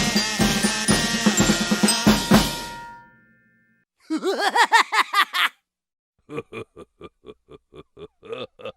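A drum-kit beat with snare, bass drum and cymbals fades out about three seconds in. After a short pause comes a quick burst of rapid voice-like sounds, then, after another pause, a run of short, evenly spaced grunting or groaning sounds, about three a second.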